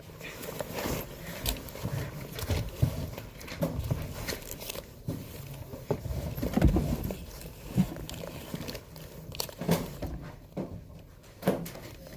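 Irregular rustling with scattered sharp clicks and knocks, the loudest about halfway through.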